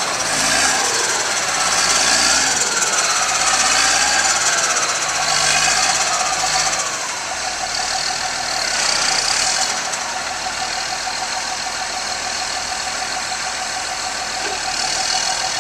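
Caterpillar 12M motor grader's diesel engine running, its revs rising and falling over the first ten seconds, then holding steady.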